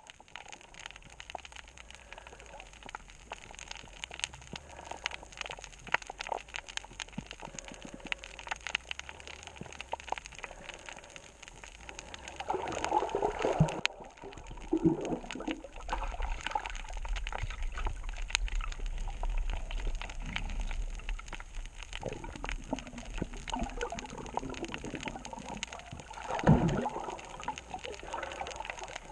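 Underwater reef ambience: a constant crackle of fine clicks, with louder bubbling gurgles about halfway through and again near the end.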